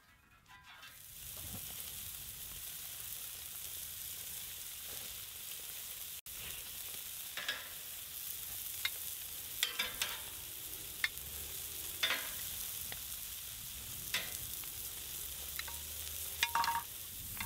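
Butter and raw hamburger patties sizzling on the hot steel grill top of a wood-fired fire pit, a steady hiss starting about a second in. Scattered sharp clicks of metal tongs on the steel.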